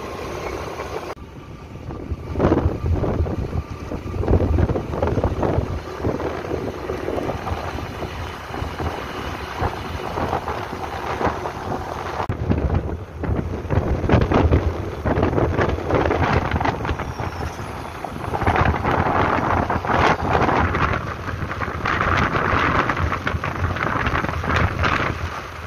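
Wind buffeting the microphone of a moving motorcycle, gusting unevenly over the rush of road noise.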